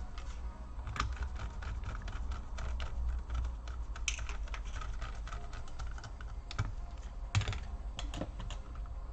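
Rapid, irregular small clicks and taps of a precision screwdriver working the screws that hold a laptop's CPU cooler, with a louder click about seven seconds in.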